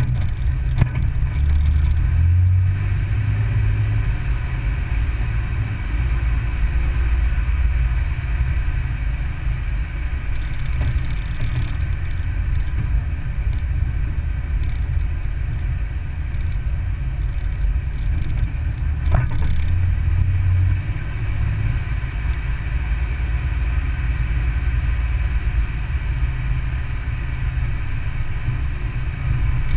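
Vehicle driving slowly along a rough dirt road: a steady low engine and road rumble with tyre and body noise. The low note swells briefly twice, once near the start and once about two-thirds of the way through.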